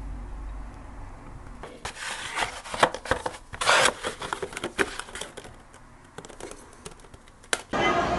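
Hands handling bento boxes: light wooden clicks, rubbing and paper crinkling, loudest in a short burst about halfway through. Near the end this gives way suddenly to the chatter of a station crowd.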